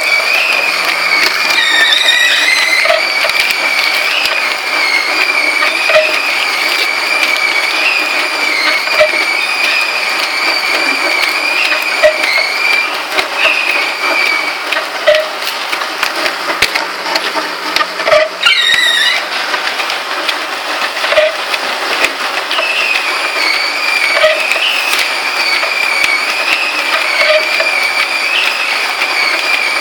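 An inkjet date-coding printer and its belt conveyor running steadily, with a wavering high whine and a soft tick about every second and a half as plastic bags are carried past the printhead.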